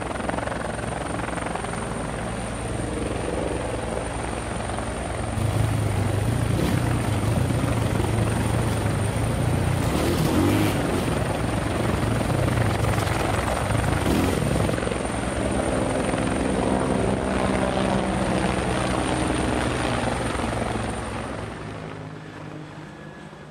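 Camera drone's propellers whirring: a steady hum with a thin high whine. From about five seconds in, for roughly nine seconds, a louder, rougher sound with a strong low hum takes over, and the whir then fades out near the end.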